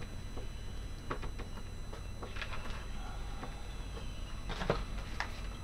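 Scattered small clicks and taps of multimeter test probes and their leads being handled against the terminals of a diesel-heater glow plug, over a faint steady low hum.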